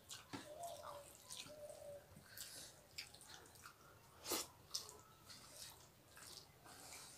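Quiet, wet clicking and smacking as fingers mix rice and dal on plates and mouths chew, with one sharper smack about four seconds in.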